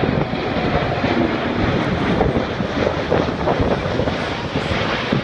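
Airbus A380 airliner passing low overhead, the loud, steady rushing noise of its four jet engines.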